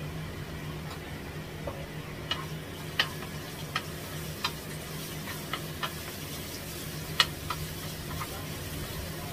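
Cooking utensils knocking and scraping against a nonstick wok while chopped garlic is stirred and fried in oil, giving about eight sharp taps, the loudest about seven seconds in. A light sizzle and a steady low hum run underneath.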